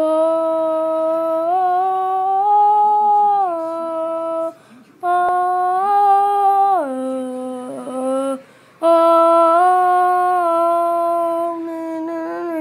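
A voice humming a slow tune in three long held phrases, each stepping up and down between a few notes, with short breaks between them.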